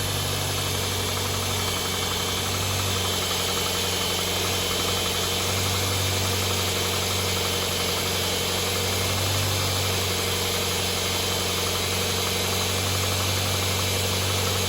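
2006 Toyota Corolla SEG engine idling steadily just after a cold first start, with a busy mechanical clatter over its even hum.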